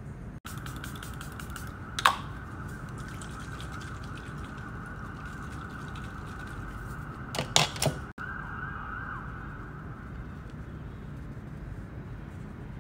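A makeup setting spray bottle spritzed three times in quick succession a little past halfway through, after a single sharp burst about two seconds in. Under it runs a faint, steady high whine that wavers slightly in pitch.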